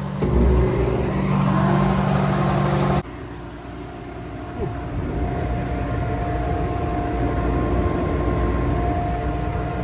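An engine running steadily for about three seconds, then an abrupt change to a steady mechanical drone with a constant whine, which fits the grain bin's aeration drying fan blowing air through the corn.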